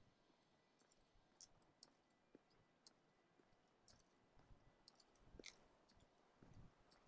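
Near silence, with faint scattered clicks and a few soft thumps, more of them in the second half.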